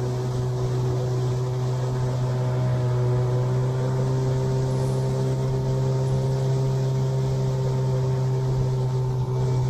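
Outboard motor pushing an inflatable boat, running steadily at cruising throttle of about two-thirds: a constant drone that holds one pitch throughout.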